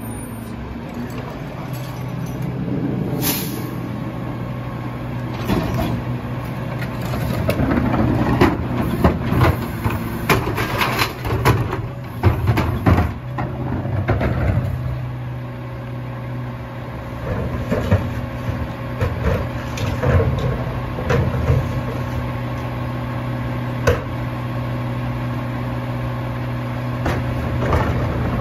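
Mack LR rear-loader garbage truck's diesel engine idling steadily, with a brief hiss about three seconds in. Recyclables clatter and bang into the McNeilus rear hopper for several seconds near the middle, followed by a few scattered sharp knocks.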